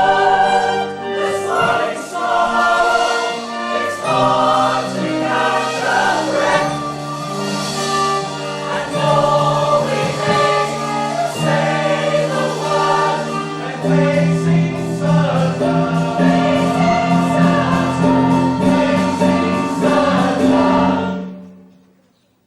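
A chorus of voices singing a stage-musical number with instrumental accompaniment, the held chords fading to silence near the end.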